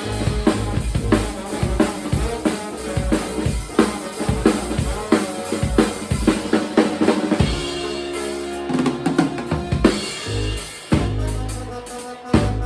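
Live band playing an instrumental passage with no singing, the drum kit loudest: kick, snare and rimshots over low bass notes. A sustained chord is held for about a second and a half in the second half, broken up by a run of drum hits.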